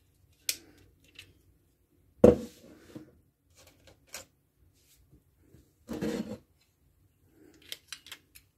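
Handling noise from a hand-held hanging-peg tool and strips of attached hanging pegs on a wooden tabletop: scattered knocks and clicks, the loudest about two seconds in, a short rattle around six seconds, and a quick run of small clicks near the end.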